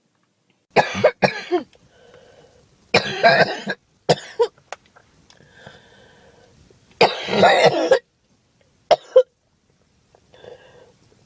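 A girl coughing in repeated fits: a few short coughs about a second in, a longer burst around three seconds, a longer fit about seven seconds in, then two quick coughs, with faint breaths between the fits.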